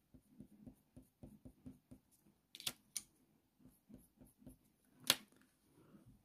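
Faber-Castell Polychromos coloured pencil making short, faint strokes on hot-press watercolour paper, with a few sharp clicks between about two and a half and five seconds in.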